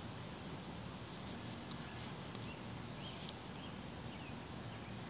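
Steady outdoor background noise with a low rumble, and a few faint, short, high chirps from about three seconds in.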